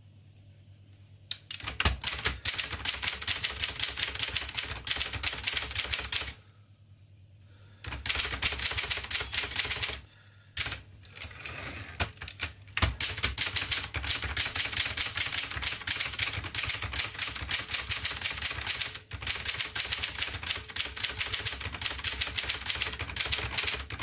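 1958 Adler Special manual typewriter being typed on quickly: a dense run of clacking keystrokes as the type bars strike, starting about a second and a half in, with a pause after about six seconds. Around ten seconds in the carriage is thrown back with the return lever, then fast typing resumes.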